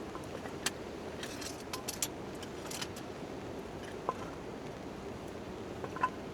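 Campfire crackling, with irregular sharp pops and snaps, the loudest near the end, over a steady hiss of light rain falling on a tent tarp.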